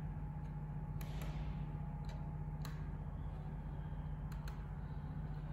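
Faint clicks of a Dell P2419H monitor's menu buttons being pressed, about six presses at uneven intervals, over a steady low hum.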